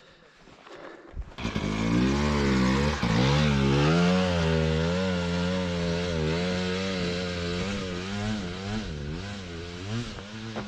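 Enduro motorcycle engine that comes in suddenly about a second in and revs hard, its pitch rising and falling with the throttle as the bike climbs.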